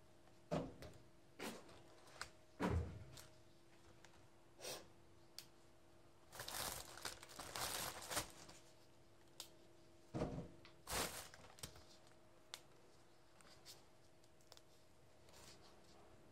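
A green plastic bag and a thin plastic glove crinkling and rustling as hands pick through a pile of red chili peppers, in short separate crackles with a longer rustle about halfway through. A faint steady hum runs underneath.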